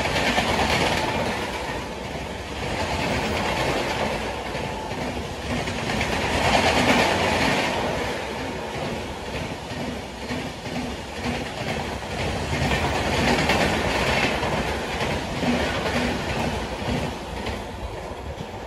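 Express passenger train of LHB coaches running through at speed close by: a steady rush of wheels and air with a regular clickety-clack of wheels over rail joints. It swells and eases as the coaches pass, and grows softer near the end as the last coaches go by.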